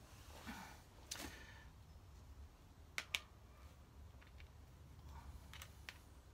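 Quiet room with a low hum, broken by a few faint sharp clicks and taps as parts are handled at the motorcycle's sump guard, two of them close together about three seconds in.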